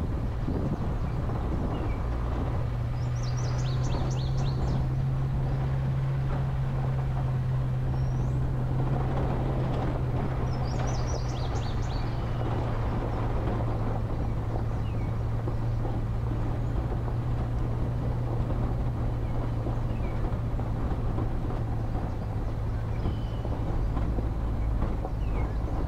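A vehicle's engine runs at a steady hum while its tyres crunch over a gravel dirt road. A bird chirps briefly twice, at about four and eleven seconds in.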